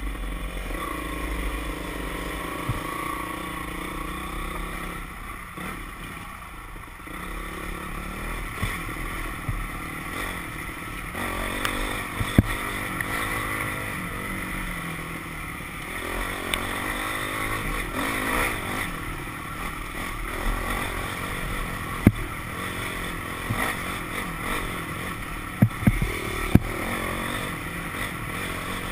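Dirt bike engine running along a trail, its pitch rising and falling with the throttle, with a few sharp knocks from bumps.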